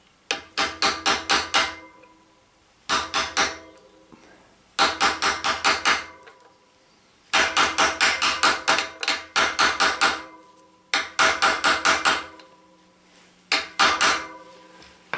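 Hammer tapping a 20 mm socket held over a cartridge bearing, driving the bearing down into a DT Swiss bicycle hub. The taps come in quick runs of a few to about seven metallic, ringing taps, several a second, with short pauses between runs.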